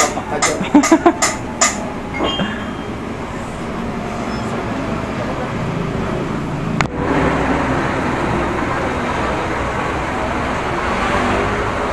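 Steady rumble of street traffic. It is broken by a few sharp knocks in the first two seconds and jumps louder about seven seconds in.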